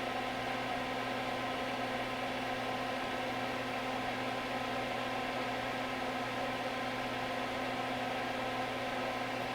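Fume extractor fan running with a steady hum, holding a few fixed tones.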